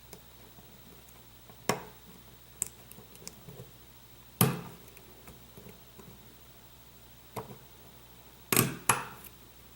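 Sharp metallic clicks of a lock pick and tensioner working the pins of a pin-tumbler lock core, about six single clicks spaced irregularly, with two close together near the end, as pins set or drop while the lock is picked toward a false set.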